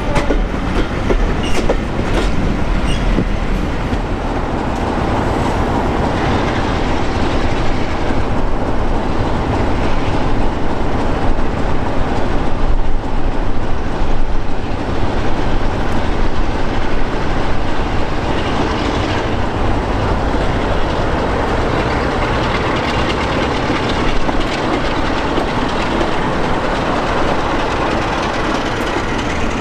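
Heritage diesel train: coaches roll past with wheels clicking over rail joints, then the Sulzer diesel engines of a Class 45 'Peak' run as it draws its train in alongside a Class 33 that stands with its engine running.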